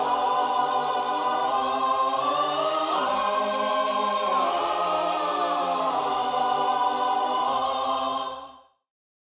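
Background music: sustained choral singing with held, gliding chords, fading out near the end.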